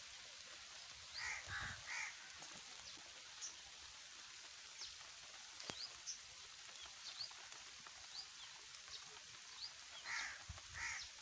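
A crow cawing, three caws about a second in and three more near the end, with small birds giving brief chirps throughout. Underneath runs a faint steady hiss of light rain.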